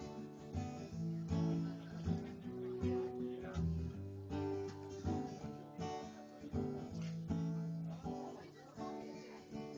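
Acoustic guitar strummed in a steady rhythm, playing through a run of chords.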